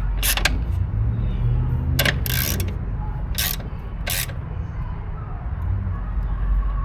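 Hand tools working the bolts of a mower's belt guide: about five sharp metallic clicks over the first four seconds, over a steady low hum.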